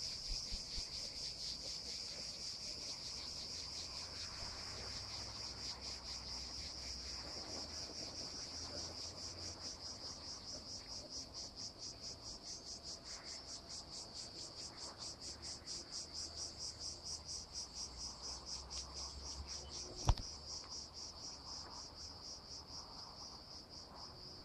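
Chorus of insects in the trees, a steady high-pitched shrill chirring with a fast pulsing rhythm that carries on throughout. A single sharp click stands out about twenty seconds in.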